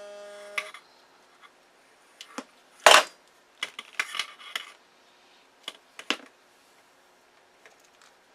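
Leatherman multitool blade and RG6 coax being worked while the coax jacket is cut around: scattered light clicks and clatters, the loudest a sharp knock about three seconds in. A steady tone dies away within the first second.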